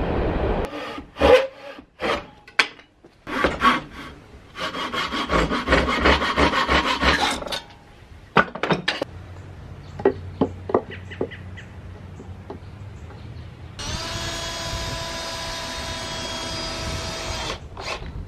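Knocks and clatter of wood and metal as a small electric motor and its belt are set up on a wooden stand, with a stretch of dense rattling and some scattered clicks. Near the end a small electric motor spins up and hums steadily for about four seconds, then stops.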